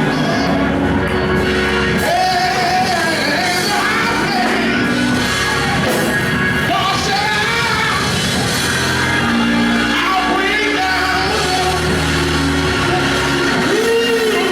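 Church worship music: a band playing with voices singing held, gliding lines.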